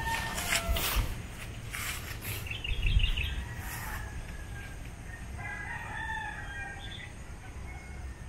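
A rooster crowing: one long call from about five seconds in, lasting a couple of seconds. A quick run of short bird chirps comes near three seconds in, and low thumps sound in the first second.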